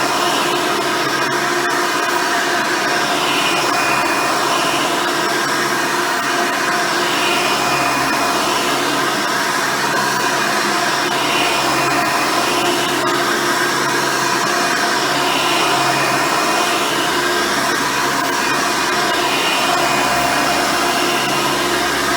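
Hoover Elite upright vacuum cleaner, with its original 7-amp motor and 7-blade fan, running steadily with a single-row brush roll while cleaning. The hiss of the airflow swells regularly about every four seconds.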